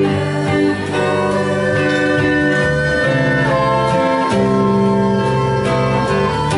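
Acoustic song played live: strummed acoustic guitar under long, held melody notes.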